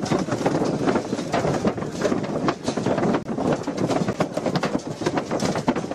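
Commotion of a jostling crowd on foot: a dense, steady jumble of noise with many short knocks and clicks.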